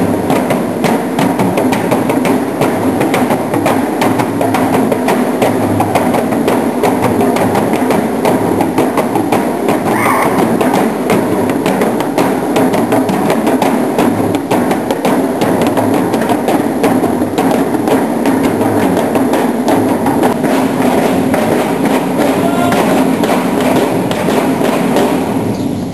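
A group of Moluccan tifa drums, cylindrical wooden drums with skin heads beaten with sticks, playing a fast, steady processional rhythm that stops near the end.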